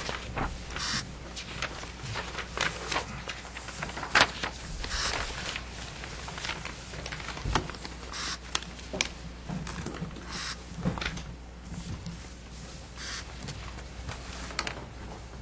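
Irregular rustles, clicks and light knocks, like papers being shuffled and things handled near the microphones, over a steady low electrical hum.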